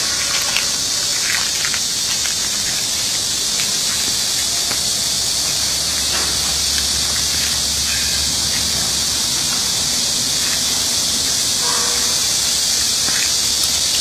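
Steady high-pitched hiss with no change in level.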